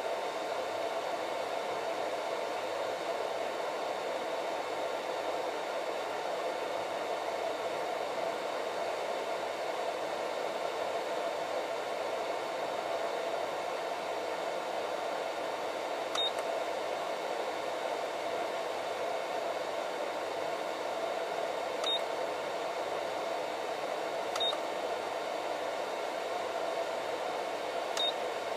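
Steady whir of a 500 W RC balance charger's cooling fan while it charges a LiPo pack at about 20 A. In the second half, four short high beeps sound as its front buttons are pressed.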